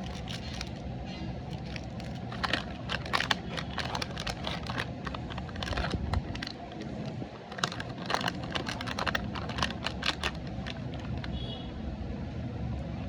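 Plastic candy wrappers crinkling and crackling as they are handled and opened, in irregular sharp crackles from about two seconds in until about ten seconds, over a low steady background rumble.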